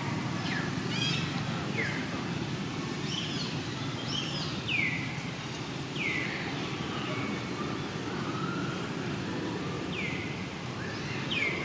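About five short, high animal calls, each falling in pitch, spaced a second or more apart, over a steady low background rumble.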